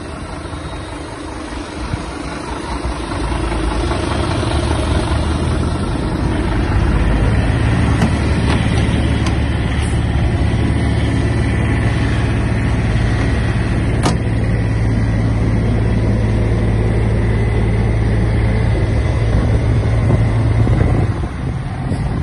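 Refrigerated truck idling: a steady diesel hum that grows louder over the first few seconds, holds even, and drops suddenly near the end.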